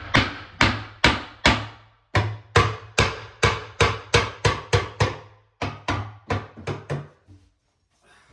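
Hammer driving nails into wood: a run of sharp strikes, two to three a second, coming faster as the nail goes home. After a short break past halfway, a second quickening run stops shortly before the end.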